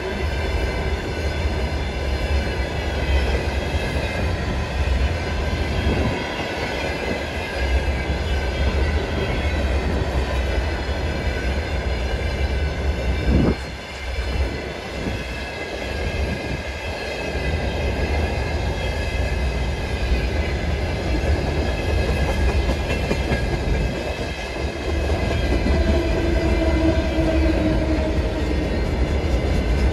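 Long freight train of open gondola wagons rolling past at speed: a steady rumble of wheels on rail with high, steady ringing tones over it, and one sharp knock about thirteen seconds in.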